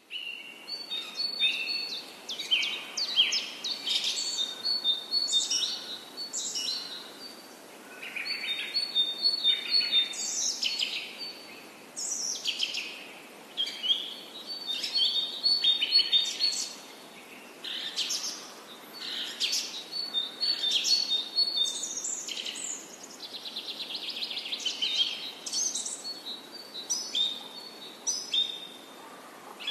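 Birds chirping and singing, short high calls following one another closely, with a fast trill a little before the end.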